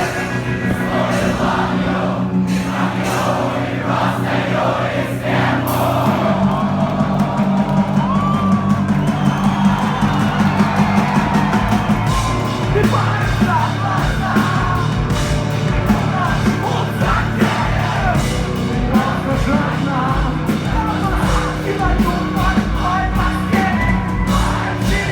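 Live rock band playing a song with a singer's voice over distorted guitars and drums; the drum beat becomes steady and driving about halfway through.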